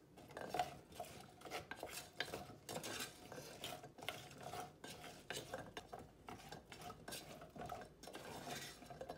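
A wooden spoon stirring and scraping rice cakes coated in oily chili seasoning around the inside of a pot, in irregular strokes with light knocks of the spoon against the pot.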